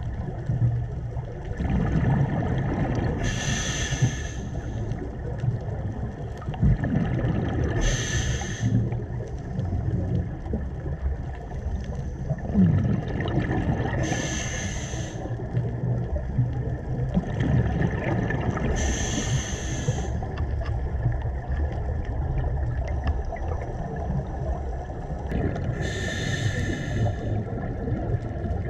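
A scuba diver breathing through a regulator underwater: about five bursts of exhaled bubbles, each roughly a second long and four to six seconds apart, over a steady low underwater rumble.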